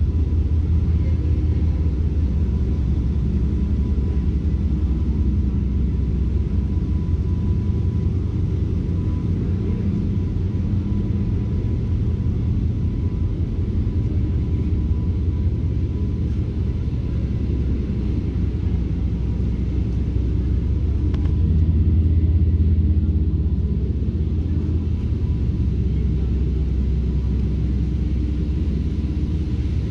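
Steady low rumble of an idling engine, with a low hum running through it, swelling slightly about three quarters of the way through.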